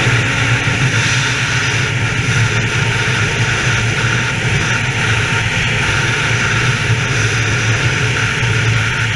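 Polaris 800 two-stroke snowmobile engine running steadily at speed, with wind rushing over the microphone.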